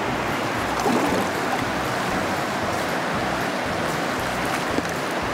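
Shallow, rocky river flowing steadily: an even rush of running water.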